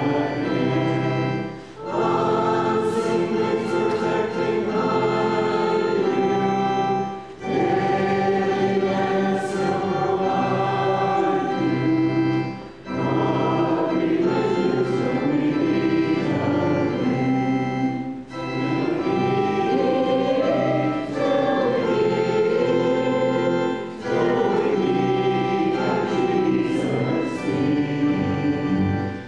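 Congregation singing a hymn to steady keyboard accompaniment. The singing comes in phrases, with a brief pause for breath about every five or six seconds.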